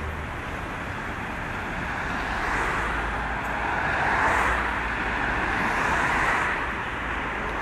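Street traffic: cars passing close by in the kerbside lane, a steady tyre and engine rush that swells and eases as they go by.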